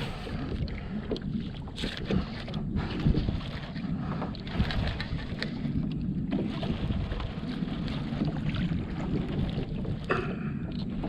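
Wind buffeting the microphone and choppy water slapping against a kayak hull, with scattered clicks and knocks.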